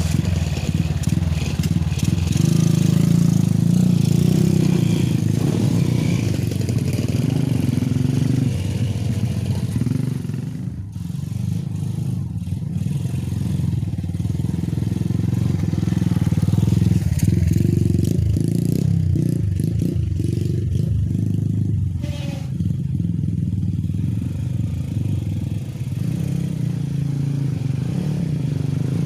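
Motorcycle engine running at low speed while hauling a heavy load of logs along a rough dirt track, its note swelling and easing, with clattering and scraping from the load and bike.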